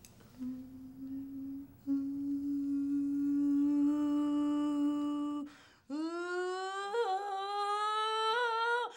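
A woman keening in imitation of a funeral lament: two long, steady hummed notes, then, after a short break, a wailing note that slides up in pitch and is held with a couple of small wavers. A very terrible sound.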